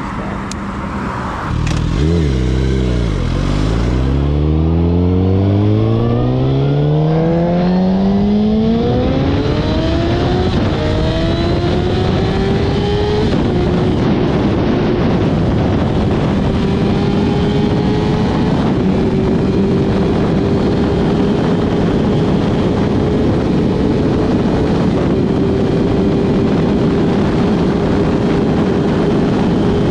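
Suzuki GSX-R1000 inline-four engine pulling away and accelerating, its pitch climbing steadily for about ten seconds, then settling into a steady cruise under heavy wind and road noise.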